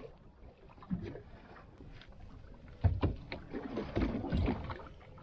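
Water lapping and slapping against the hull of a small fiberglass boat drifting at sea, with a few heavy knocks: one about a second in, and louder ones about three seconds and four seconds in.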